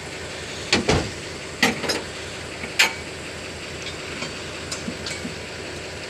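A few sharp metallic clinks and knocks from hand tools worked against the wrecked truck's metal body, the loudest about a second in, the rest fainter, over a steady engine hum.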